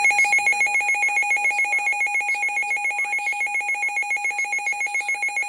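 Weather radio alert tone for a severe thunderstorm warning: a loud electronic tone pulsing rapidly, about eight beats a second, like a ringing phone.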